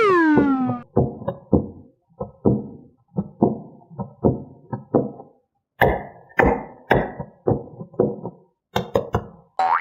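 A run of light, hollow taps or knocks on a toy, irregular at about two a second, each with a short ring. The tail of a falling whistle-like cartoon sound effect is heard at the very start, and rising chirp effects begin right at the end.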